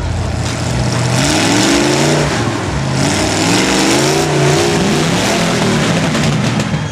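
Lifted mud trucks' engines revving hard, the pitch climbing and dropping several times, over a steady rushing hiss.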